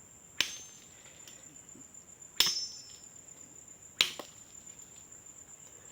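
Three sharp chops, spaced about one and a half to two seconds apart, of a blade cutting cassava stems into planting cuttings.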